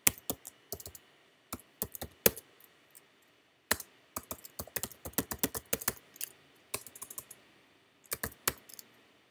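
Computer keyboard typing. Irregular runs of keystrokes with short pauses between them, and a fast run of keys in the middle.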